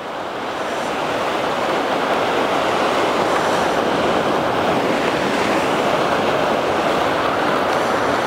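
Ocean surf breaking and washing against rocks: a steady rush of water that swells over the first second.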